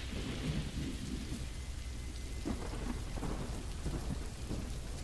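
Recorded rain ambience: steady rain with a constant low rumble underneath.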